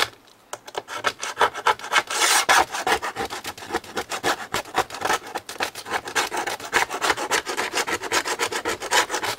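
Small carving chisel scraping old sponge and tape residue off the metal strip of a knitting machine's needle retainer bar, in rapid back-and-forth strokes, several a second, after a brief pause at the start.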